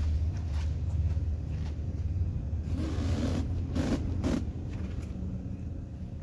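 A steady low hum with a few rustling, scraping handling noises between about three and four and a half seconds in, as the handheld camera is moved about inside the car.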